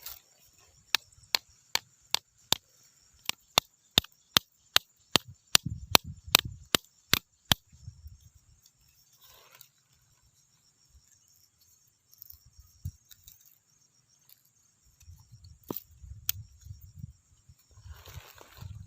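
A quick run of sharp knocks on wood, about two and a half a second for some seven seconds, then two more single knocks later on.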